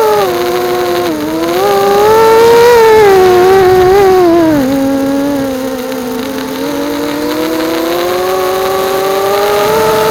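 Bee210 FPV quadcopter's motors and propellers whining, pitch falling and rising with the throttle. It dips to its lowest about five seconds in, then climbs steadily toward the end.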